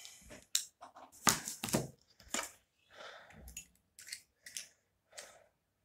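Hands handling a smartphone and its plastic parts: a string of short clicks, scrapes and rustles at uneven intervals, the loudest about a second in.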